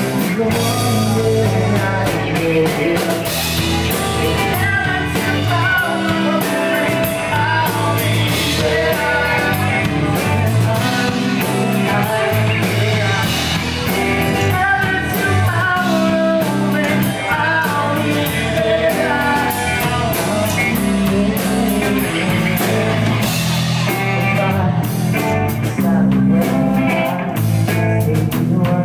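Live rock band playing loud and steady: distorted electric guitars, bass guitar and drum kit, with a singer's voice into a microphone.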